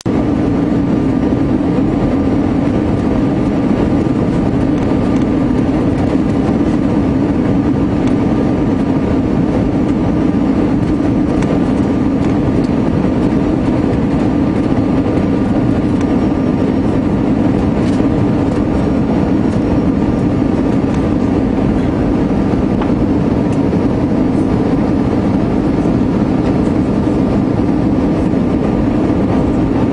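Jet airliner cabin noise heard at a window seat beside the engine: the steady, loud rush of the jet engines and airflow, with a low hum and a faint steady whine above it.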